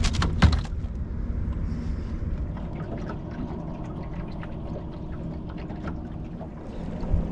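Handling noise on a small fishing boat: a sharp knock or two just after the start, then a steady low rumble of water and wind against the boat with scattered small clicks.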